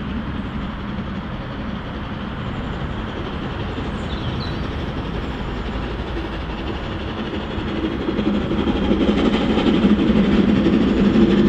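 LMS Jubilee class steam locomotive 45699 running, a steady mechanical noise that grows louder about eight seconds in.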